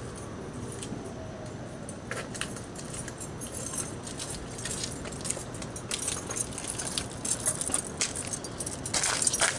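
Irregular small metallic clicks, rattles and scrapes of hands and pliers working on a TV set's control shafts, getting busier toward the end.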